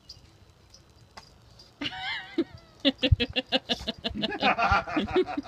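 Yellow Labrador retriever snapping at hose spray and vocalising: a short wavering whine about two seconds in, then a rapid run of short excited yips.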